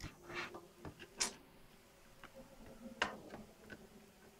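A few faint, scattered clicks and taps from a laptop motherboard and multimeter probes being handled and positioned, the clearest about a second and about three seconds in.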